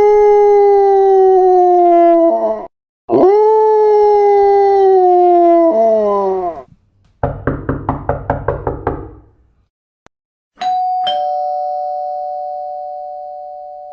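Two long, slowly falling howls, then a rapid string of short calls at about six a second. After that, a two-tone ding-dong doorbell chime rings and slowly fades.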